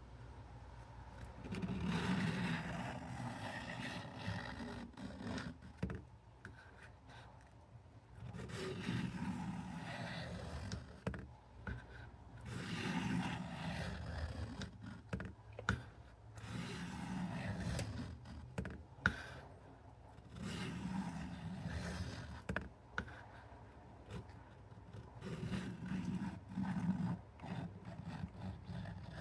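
A steel knife blade, a vintage Cattaraugus 225 Quartermaster, scraping along a fine grit sharpening stone lubed with WD-40, in repeated runs of strokes a couple of seconds long with short pauses and a few clicks between them.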